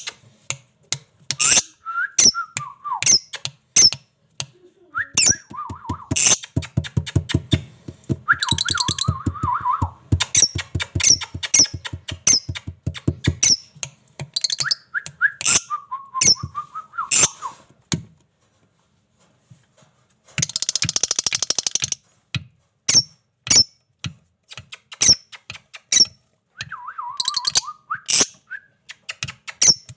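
Pet parrots calling: a run of short, sharp high chirps and falling whistles, with a stretch of rapid buzzing chatter about a third of the way through and a harsh, raspy screech about two-thirds through.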